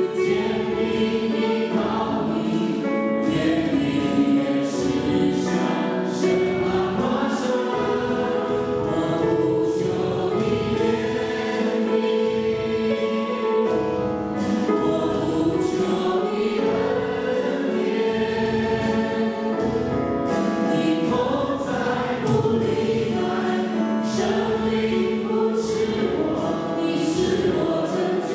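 Small group of men and women singing a Chinese-language worship song together into microphones, backed by music with a steady beat.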